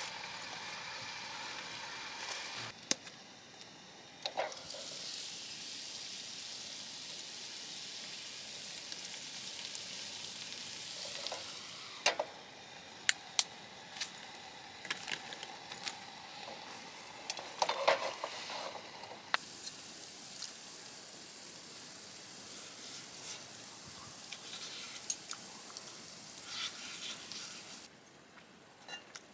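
Baby scallops frying in a pan, sizzling steadily, with scattered clicks and taps of a utensil against the pan.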